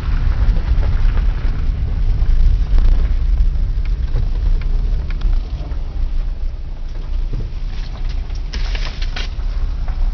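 Car rolling slowly over a gravel yard, heard from inside the cabin: a steady low rumble of engine and tyres with scattered crackles. A brief hiss comes about eight and a half seconds in.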